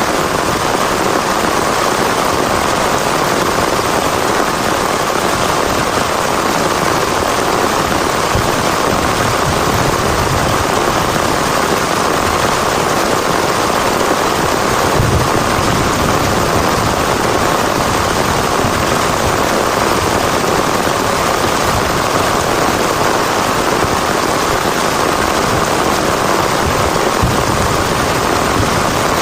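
Heavy rain falling steadily, an even, unbroken wash of sound with no let-up.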